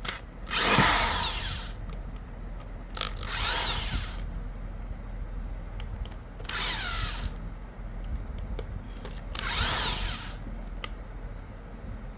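Electric drill-driver run in four short bursts of about a second each, its motor whine rising as it spins up and falling as it slows, with small clicks between the bursts.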